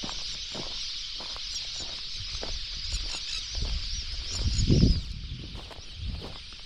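A large flock of whistling ducks calling together: a dense chorus of many high, wavering whistles. A brief low rumble rises over it about four and a half seconds in.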